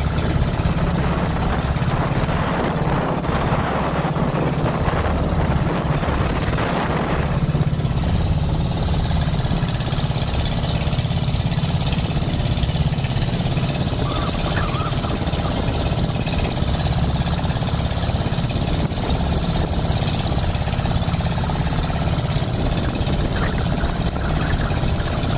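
Outrigger fishing boat's engine running steadily underway, a loud, even drone. A rushing hiss over it fades about seven seconds in.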